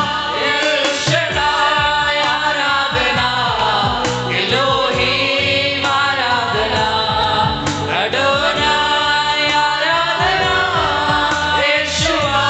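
A worship team of men and women singing a Telugu Christian worship song together into microphones, over instrumental backing with a steady beat.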